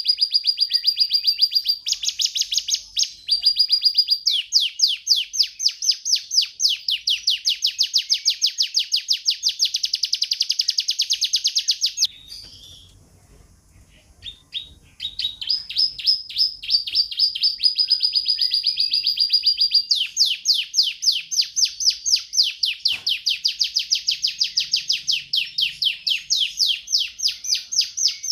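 Domestic canary singing: rolling trills of rapid repeated notes alternating with long held high notes. The song breaks off for about three seconds around the middle, then resumes.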